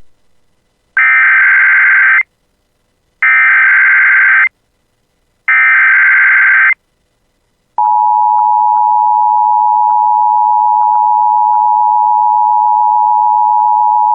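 Emergency Alert System SAME header: three identical buzzy digital data bursts, each a little over a second long and a second apart. About eight seconds in, the single steady weather-radio alert tone near 1 kHz starts and holds on.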